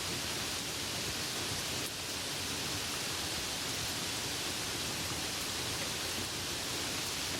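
Steady rain falling, an even hiss without single drops standing out.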